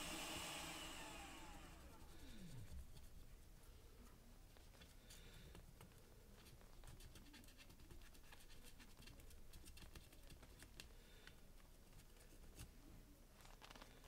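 A small fan's hiss dies away over the first two seconds with a falling whine as it spins down, typical of a hot air rework station's blower switching off. After that, faint scratching and light ticks as the circuit board is scrubbed clean around the reflowed chip.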